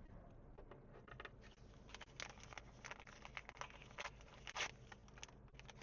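Faint crinkling and rustling of small plastic wrappers being unwrapped by hand, with scattered light ticks, to get at a miniature toy item.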